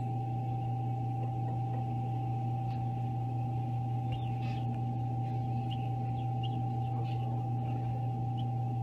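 Egg incubator running with a steady low hum and a constant higher whine from its fan and motor. A few faint, short high peeps come through in the second half, as a chick hatches in a pipped egg.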